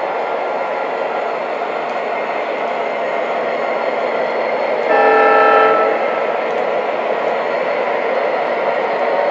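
Three O-scale MTH model diesel locomotives running together on three-rail track, the steady rumble of their onboard diesel sound effects mixed with wheel and track noise. A horn sounds about five seconds in and lasts about a second, the loudest moment.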